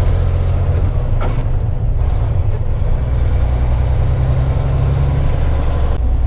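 Heavy truck's engine running as it pulls away, heard from inside the cab: a steady low rumble whose pitch steps a few times.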